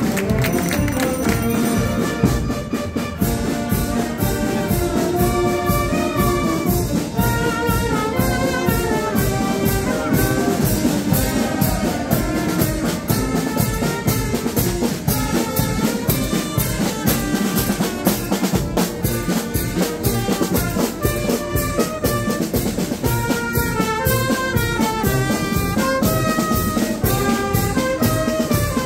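Brass band playing a processional march, a melody over a steady percussion beat.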